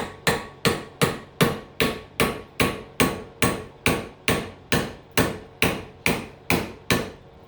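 Hammer striking a homemade steel punch in a steady run of sharp metallic blows, about two and a half a second, driving copper windings out of a cut transformer core. The strikes stop shortly before the end.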